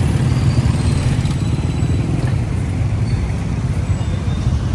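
Street traffic: a steady low rumble of motor vehicles running and passing.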